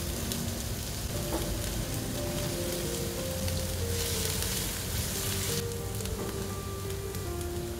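Chopped shallots, garlic and chillies sizzling in hot oil in a frying pan while being stirred with a spatula; the sizzle gets louder about four seconds in and drops back sharply a second and a half later. Soft background music with a simple melody plays over it.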